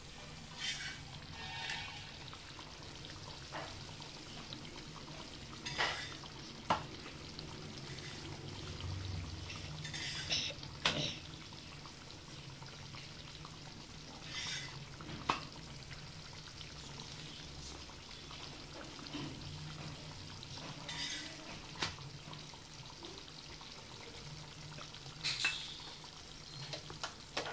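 Chapati cooking in oil on a flat tawa over a gas burner: a faint steady sizzle under a low hum, with the spatula scraping and tapping against the pan every few seconds.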